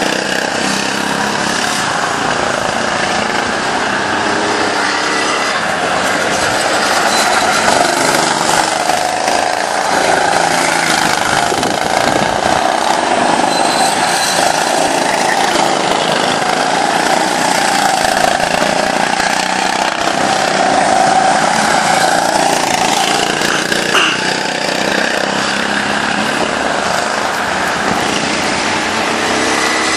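Several go-kart engines running as karts lap the track, their pitch rising and falling as they speed up and slow down through the corners.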